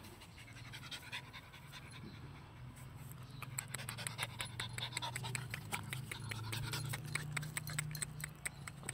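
Dog panting in quick, even breaths, which grow louder from about three and a half seconds in.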